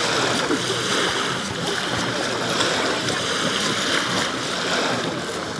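A dog digging in damp beach sand, its front paws scraping rapidly and flinging sand, with small waves washing onto the shore close by.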